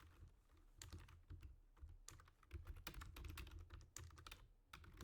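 Faint, irregular clicking and ticking of trading cards being handled as they are flipped and slid through the hands.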